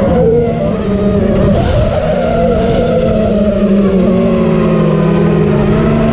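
Freestyle drone's electric motors and propellers whining, heard from the drone's onboard camera. The pitch drops sharply right at the start as the throttle comes off, then holds lower and wavers slightly.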